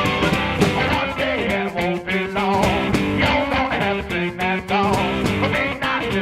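Background rock music driven by guitar, with a steady beat.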